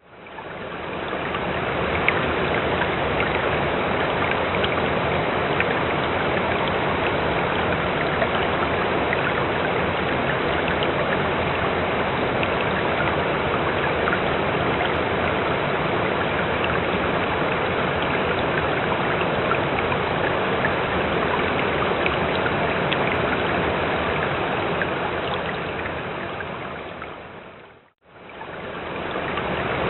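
Running water: a steady flow with small splashes and drips throughout. It fades in at the start, fades out to a moment of silence near the end, then starts again.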